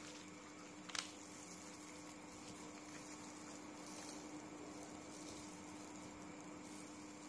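Faint handling sounds of plastic-gloved hands peeling a cooked shrimp, with one sharp click about a second in, over a steady low hum.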